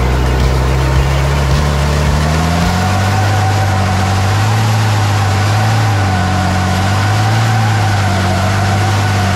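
Race truck's diesel engine running hard on track, its pitch climbing about two seconds in and then holding steady with slight rises and dips.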